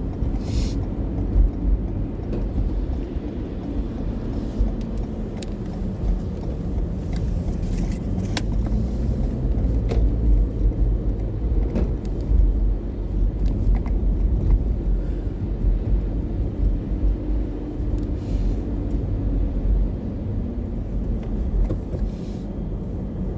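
Car driving, heard from inside the cabin: a steady low rumble of engine and tyres on the road, with a few brief hisses.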